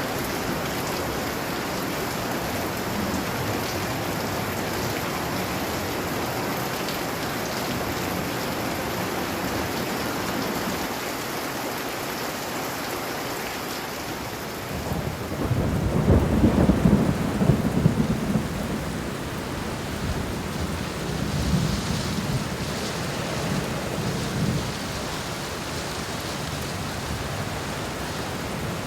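Heavy rain falling steadily, with a low rumble of thunder swelling up about halfway through and fainter rumbles after it.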